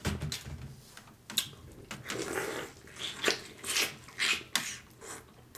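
Close-miked eating sounds: wet chewing and lip smacking on smoked turkey leg meat, in irregular short bursts.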